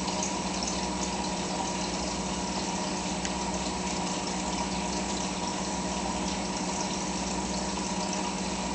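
Fish-tank filter pump running steadily: a constant motor hum under splashing, running water.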